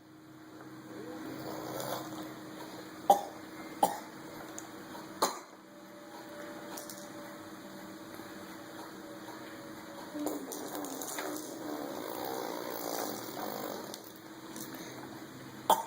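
A man's short, sharp fake coughs: three in quick succession a few seconds in, roughly a second apart, and one more near the end, over a steady low hum.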